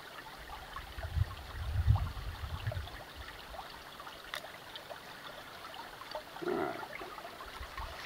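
A small creek trickling steadily, with wind gusts buffeting the microphone as a low rumble between about one and three seconds in.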